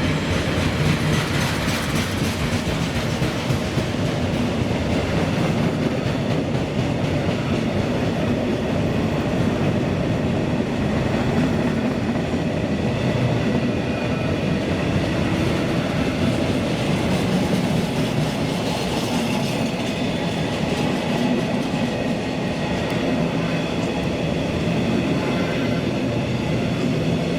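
A freight train's wagons rolling steadily past on the rails: a continuous rumble and clatter of wheels on track at an even level.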